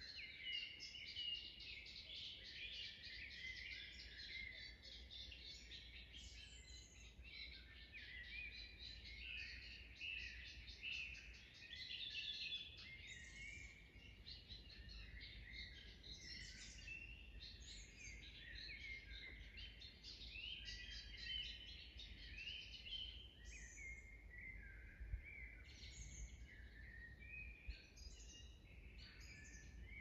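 Forest songbirds singing over each other in a steady dawn-chorus-like stream of chirps, trills and short whistled phrases, some calls sliding up or down in pitch.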